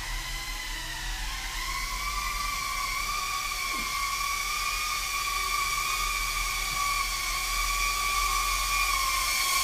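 King Kong ET100 brushless micro quadcopter in flight, its motors and enclosed props giving a steady high whine that slowly grows louder as it flies closer.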